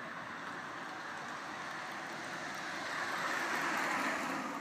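Street traffic noise: a car passing close by, its tyre and engine noise swelling to a peak near the end, then cut off suddenly.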